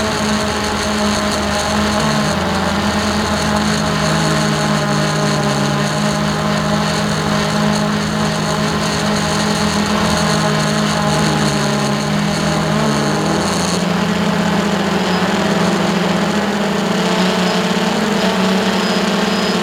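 Hubsan H109S X4 Pro quadcopter's motors and propellers humming steadily in flight. Part of the hum drops in pitch about two seconds in and rises back up around thirteen seconds, as the motor speeds change.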